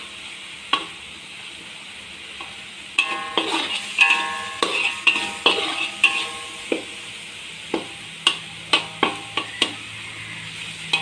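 Metal spatula scraping and knocking against a metal wok as a spice paste is stir-fried until crisp, over a steady low sizzle of oil. The strokes come in quick runs, and some leave a brief metallic ring.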